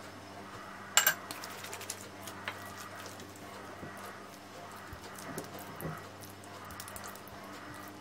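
A sharp clink about a second in, like a utensil knocking against a dish, followed by small clicks and soft patting as hands scoop and shape a sticky minced-meat and cabbage mixture, over a low steady hum.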